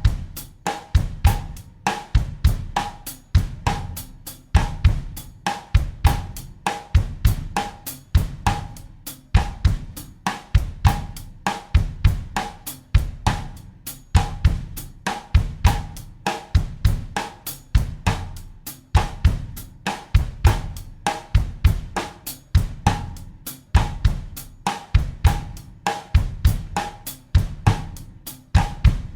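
Acoustic drum kit playing a looped bossa nova groove in 4/4 at 100 beats per minute: a steady stream of cymbal strokes over a repeating bass drum and snare pattern.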